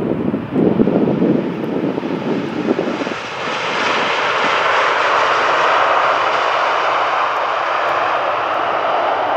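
Boeing 777-300ER's GE90 turbofan engines on the landing rollout: a gusty low rumble for about three seconds, then a steady jet roar swells and holds as the airliner slows on the runway.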